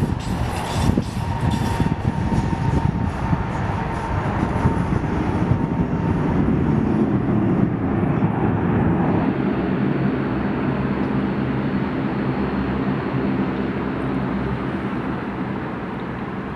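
A passing train clattering with a thin whine, fading over the first few seconds. A steady low aircraft engine hum then takes over and slowly eases off.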